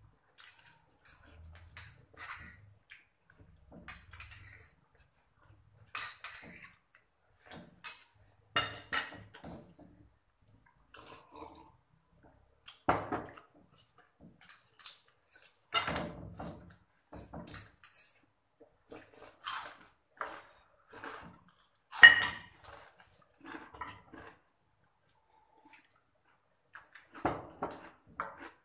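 Metal spoons clinking and scraping on ceramic plates during fast eating, in scattered short clicks, with eating noises between them.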